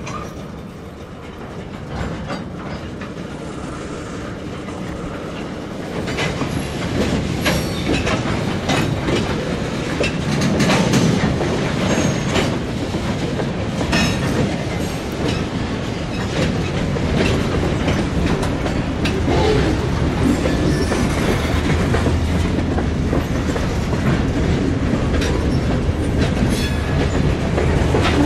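Freight train cars rolling by on the rails, wheels clicking over the rail joints in a clickety-clack, with a low rumble that grows louder about six seconds in.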